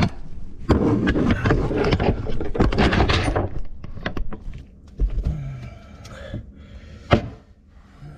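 Clattering, knocking and scraping of drain fittings and tools being worked under a kitchen sink for about three seconds, then a single thud and a sharp click near the end.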